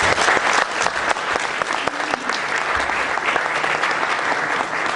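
Audience applauding, a dense, steady clapping by many hands.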